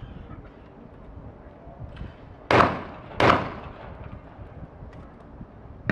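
A 12-gauge shotgun fired twice in quick succession, about three-quarters of a second apart, at a pair of skeet targets. Each report trails off briefly.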